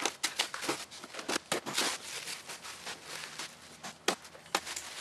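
Plastic stretch wrap being cut and pulled off a shipping pallet: irregular crinkling and tearing rustles with a few sharp snaps.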